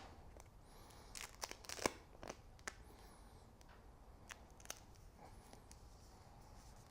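Faint crinkling and sharp clicks of the grip bonding strip's paper backing being handled and peeled, busiest in the first few seconds.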